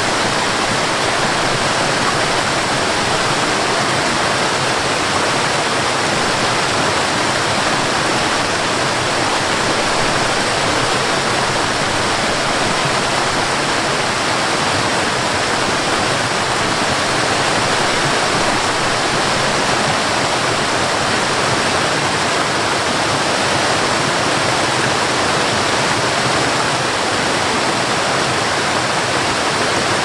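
Steady, unbroken rush of a waterfall, water cascading down over rocks.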